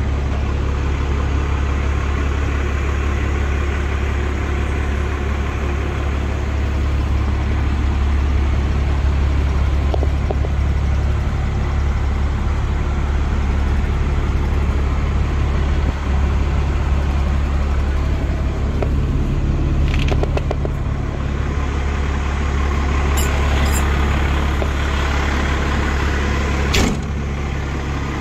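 Fire pumper truck's Cummins diesel engine idling steadily, a low, even rumble. A few light clicks are heard later, and a single sharp thump comes near the end.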